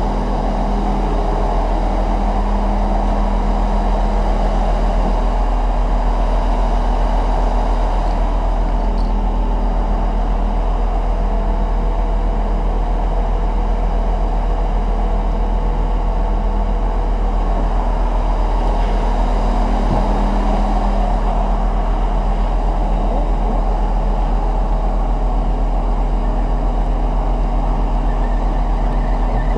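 A steady engine drone with a deep hum, holding the same pitch and level throughout.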